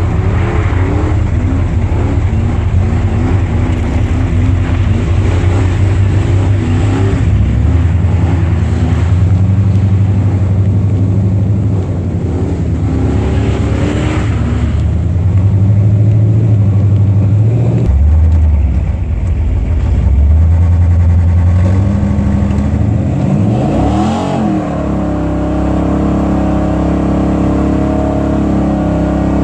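Car engine running and revving, its pitch stepping up and down several times as it speeds up and slows. There is a quick rev up and back down about three-quarters of the way through.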